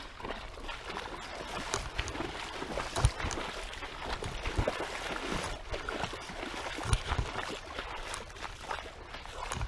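Creek water splashing and sloshing, with scattered small clicks and two low thumps, about three seconds in and again near seven seconds.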